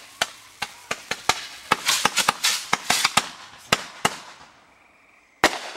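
Consumer fireworks going off: a rapid, irregular string of sharp pops and crackles that thins out about four seconds in, then one loud bang near the end.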